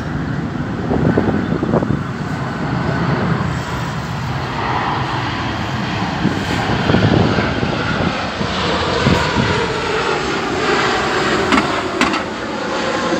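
Boeing 737-800 airliner's CFM56 jet engines passing low overhead on landing approach, gear down: a loud, steady jet rumble with a faint wavering whine above it.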